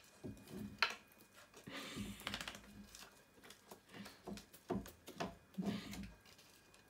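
A puppy nosing and mouthing a long stick on a wooden floor: scattered light knocks, taps and scrapes of the stick and the puppy's paws.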